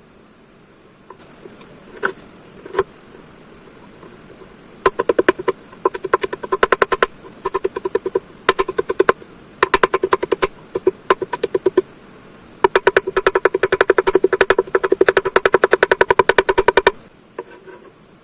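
Knife chopping fast on a cutting board, in quick runs of even, sharp knocks separated by short pauses, with a longer steady run near the end.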